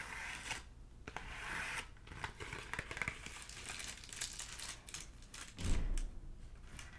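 Crinkling and tearing of an incense packet's wrapping, in several rustling stretches. About six seconds in comes a heavy low thud of footsteps clomping on stairs.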